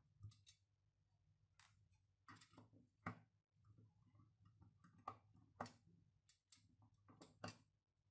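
Faint, scattered sharp clicks and ticks of a screwdriver working screws out of a floppy disk drive's sheet-metal case, about nine or ten in all, the loudest near the end.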